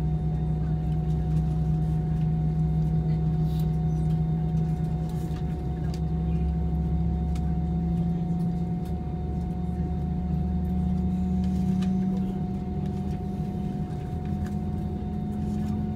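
Airbus A320 cabin noise on the ground, heard from a window seat: a steady drone of the aircraft's engines and air systems, with a low hum that slowly rises in pitch and a steady higher tone over it.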